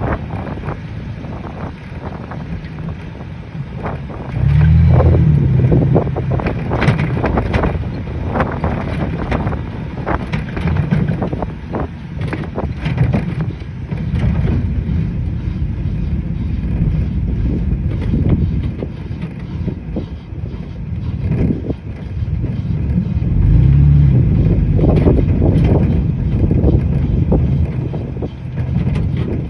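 A vehicle on the move, filmed to show a grinding noise, with wind buffeting the microphone. There is a rough low rumble throughout, swelling louder twice: about five seconds in and again around twenty-four seconds.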